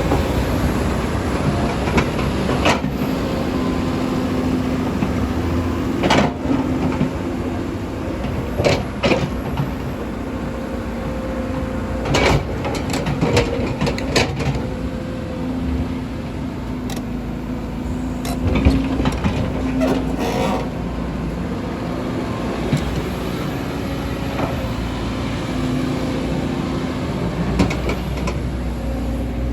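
Kobelco hydraulic excavator's diesel engine running steadily under load, with irregular sharp metallic clanks and knocks scattered throughout.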